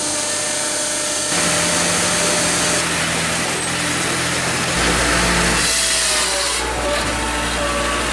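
Electric firewood processor (Processor 8000) running: a steady mechanical drone from its electric motor and drive, growing louder about a second in, with a deep rumble joining about halfway and a few shifting whining tones near the end.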